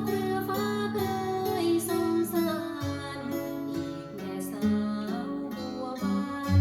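Background music: a plucked acoustic guitar with steady changing notes and low bass tones, with a voice singing faintly.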